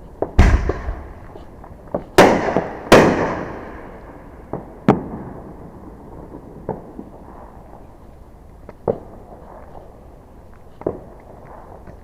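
Fireworks exploding: three loud, sharp bangs in the first three seconds, each trailing off in a long echo, then single fainter bangs about every two seconds.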